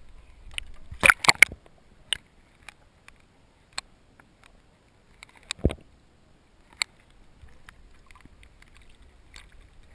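Water slapping and knocking against a camera housing that bobs half-submerged at the surface beside a float: a quick cluster of sharp knocks about a second in, then single clicks every second or two, one with a duller thump just before the sixth second, over a faint low wash.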